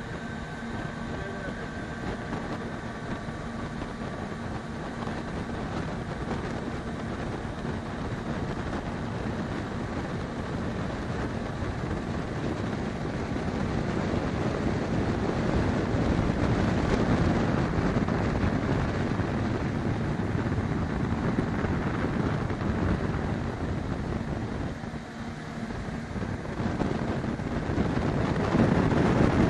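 Small motorboat under way: its engine runs steadily and wind buffets the microphone. The noise grows louder about halfway through, dips briefly near the end, then rises again.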